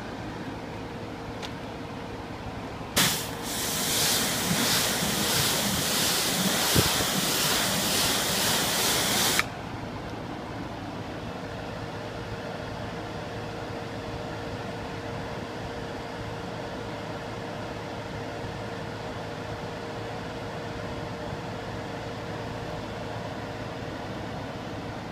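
A hose spraying water onto a car's paintwork: a loud hiss that starts suddenly about three seconds in and cuts off abruptly some six seconds later, with a steady low hum underneath.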